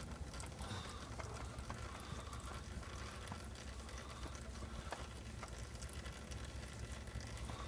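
Used engine oil draining from the open drain plug into a drain pan: a steady liquid pattering, with a few faint sharp drip ticks.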